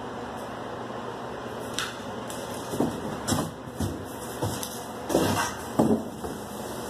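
Wooden shipping crate panels being knocked and pulled loose: a series of separate wooden knocks and thuds, several close together in the second half, over a steady background hiss.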